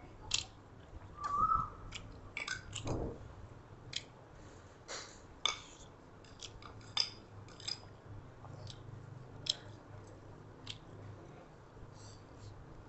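Close-up eating sounds: chewing and lip smacks, with irregular short clicks and taps.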